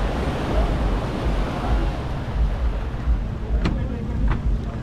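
Wind buffeting the microphone over the wash of surf on a beach, with two sharp clicks about half a second apart near the end.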